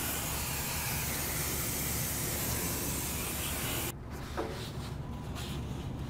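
Steady hiss of a cleaning spray being used to wash brake parts, cutting off abruptly about four seconds in, followed by quieter handling with a few faint clicks.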